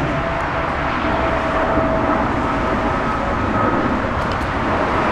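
Boeing 777 jet engines running, heard as a steady loud rumble with a faint whine.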